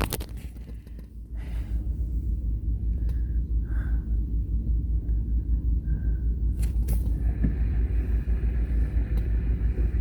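Wind buffeting the microphone: a steady, gusting low rumble that dips briefly about a second in.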